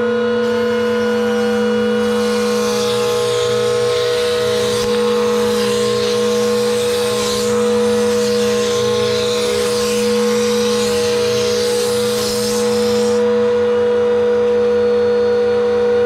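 Table-mounted router running at full speed with a steady high whine. From about two and a half seconds in to about thirteen seconds, rough cutting noise is added as the spiral flush-trim bit trims the plastic speaker-adapter blank to the template, its bearing riding the template edge.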